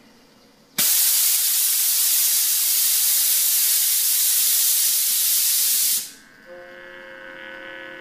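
Steam venting from a vertical steam boiler with a loud, steady hiss that starts abruptly about a second in and cuts off about five seconds later.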